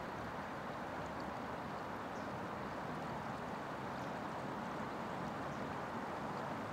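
Steady rush of shallow river water flowing over a stony bed, with a few faint high ticks.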